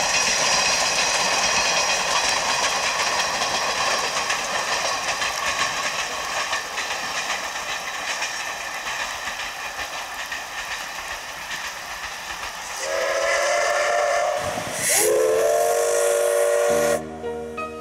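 JNR C12-class steam tank locomotive C12 66 passing with its coaches, the noise of its running slowly fading. About thirteen seconds in it sounds its steam whistle in two blasts of roughly two seconds each, the second starting with a slight rise in pitch.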